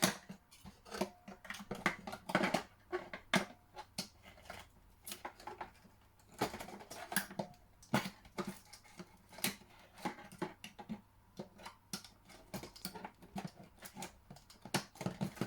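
Irregular clicks, knocks and rattles of a plastic toy helicopter and its parts being handled and worked at by hand.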